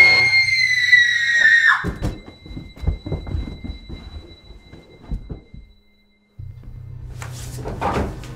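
A long, high-pitched shriek cut off about two seconds in, followed by a rapid run of thuds and knocks for a few seconds, then a moment of silence before a low musical drone returns.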